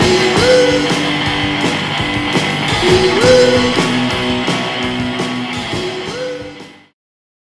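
Rock music with guitar over a steady drum beat, fading out near the end.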